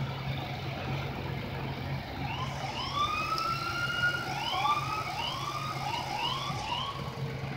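Police car siren starting a couple of seconds in with one long rising wail, then switching to a fast yelp of quick repeated up-sweeps. A steady low hum runs underneath.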